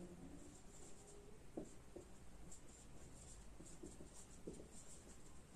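Faint marker pen scratching across a white board as a word is written, with a few soft taps of the pen tip.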